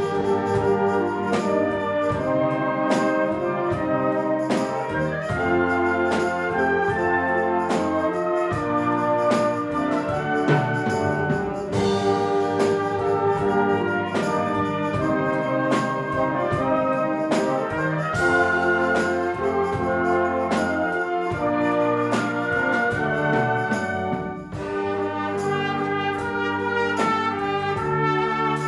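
Concert wind band playing, the brass section leading with trumpets and trombones on held chords, punctuated by regular percussion strokes.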